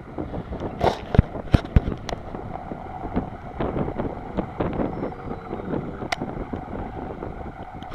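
Wind buffeting the microphone, with a few sharp knocks and clicks in the first two seconds and another about six seconds in.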